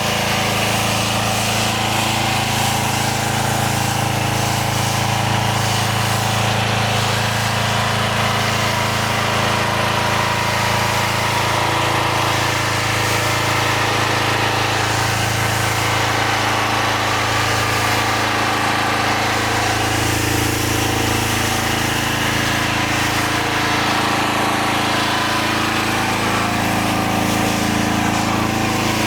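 Small gas engine of a pressure washer running steadily at one constant speed.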